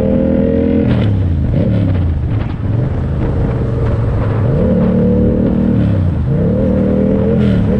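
Yamaha MT-series motorcycle engine pulling in third gear as the rider rolls off and on the throttle: the revs fall about a second in, climb back up, dip and climb again, and fall once more near the end.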